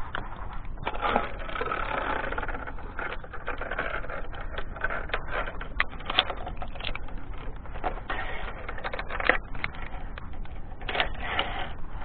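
Irregular metallic clicks, clacks and scraping of climbing carabiners and lanyard clips against steel safety cables, over a steady low rumble.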